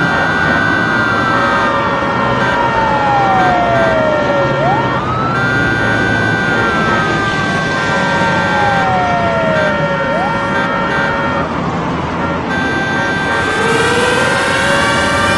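Emergency vehicle siren wailing in slow cycles, each a quick rise then a long fall lasting about four seconds, over the steady noise of city traffic. Steady held tones run alongside, and another siren pattern starts rising near the end.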